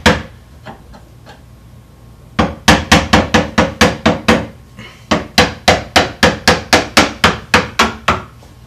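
Hammer tapping a screwdriver to drive a door hinge pin up out of its hinge. Two runs of quick, sharp strikes, about four a second, with a short pause between them.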